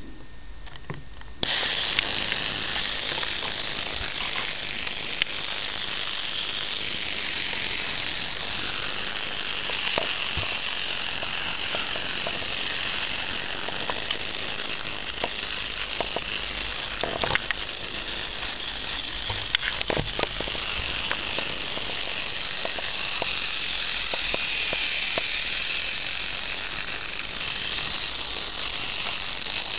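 Small electric motor and gearing of a battery-powered Brio wooden toy locomotive running steadily, switched on about a second and a half in, with scattered light clicks.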